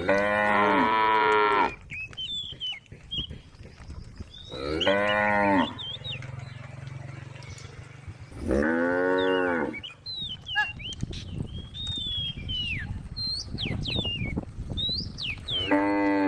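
Cows mooing: four long, loud moos a few seconds apart, the last cut off near the end.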